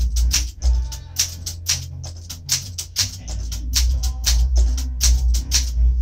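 1968 Olympia SM8 manual typewriter being typed on at a steady pace, typing out the alphabet: a quick run of sharp key-and-typebar clacks, several a second, over a low steady hum.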